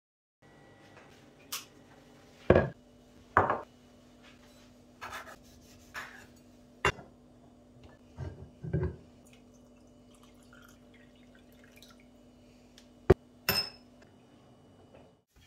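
Scattered clinks and knocks of small hard objects being handled and set down, about ten in all, the loudest a few seconds in and again near the end, over a faint steady hum.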